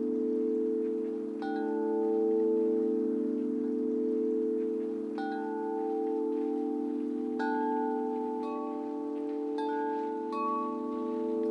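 Chimes struck now and then, about six ringing notes that each fade slowly, over a steady low humming drone, like meditative music.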